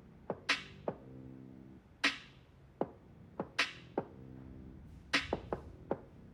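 Background music: sharp percussion hits at an uneven, beat-like spacing over a low sustained chord.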